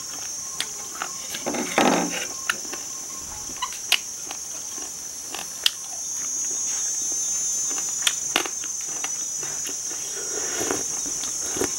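Steady high-pitched insect drone, with scattered sharp clicks and a short lower sound about two seconds in.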